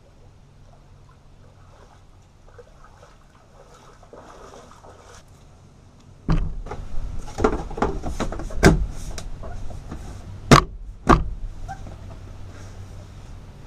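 Lake water splashing and gurgling as plastic jugs are filled by hand, with several sharp knocks of the plastic containers. It starts about six seconds in; before that there is only a faint hush.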